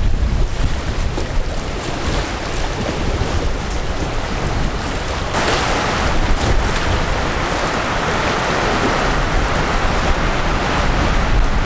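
Wind rumbling on the microphone over a steady rushing hiss of wind and lake waves. About five seconds in, the hiss turns suddenly brighter and louder.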